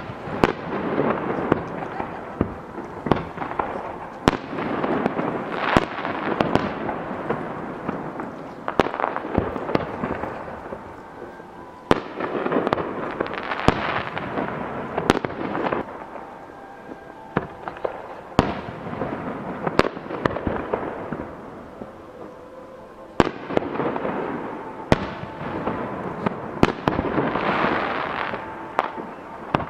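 Aerial firework shells bursting one after another, with sharp bangs every second or two. Each bang is followed by a long rumbling echo and crackle.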